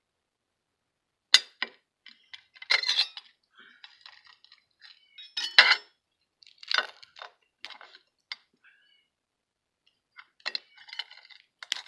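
Cooked crab claw shell being cracked and broken apart: irregular sharp cracks and crunching, the loudest cracks about a second and a half in and around five and a half seconds.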